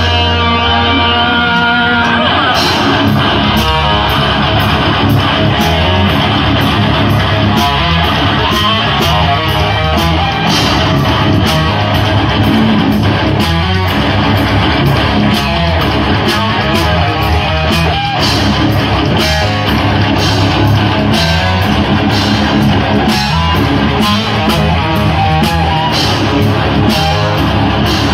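Live metal band with electric guitars, bass and drums. It opens on a held guitar chord, and about two seconds in the full band comes in with steady, driving drum and cymbal hits.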